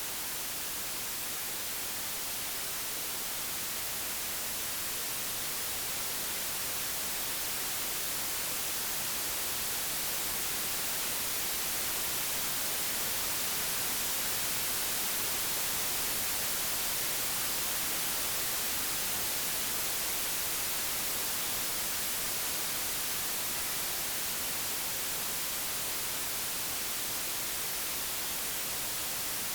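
Computer-generated white noise: an even, unbroken hiss spread across all frequencies, its level swelling slightly and slowly toward the middle.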